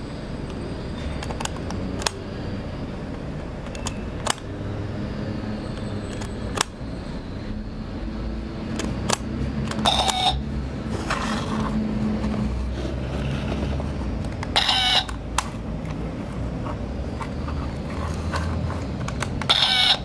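Toy camera clicking every couple of seconds, then giving three short, bright, ringing shutter-like bursts in the second half, over a low rumble.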